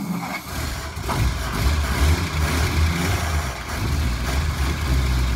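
A 1949 Packard's straight-eight flathead engine, just started after years of sitting, runs unsteadily with its loudness wavering. It is being kept going by spray into the open carburetor.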